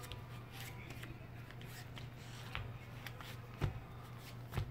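Handling noise on a hand-held phone's microphone: scattered soft clicks and rustles, with two sharper knocks about three and a half and four and a half seconds in.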